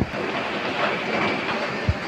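Heavy rain falling: a steady hiss thick with small patters and splashes, with one short low thump near the end.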